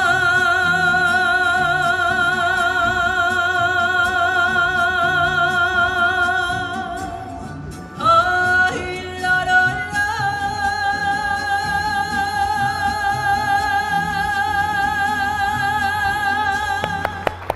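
A woman singing a Mexican ranchera in mariachi style, holding two long notes with a wide vibrato. The first note lasts about seven seconds, then after a brief break she holds a second, slightly higher note to the end, over a quiet, low repeating accompaniment.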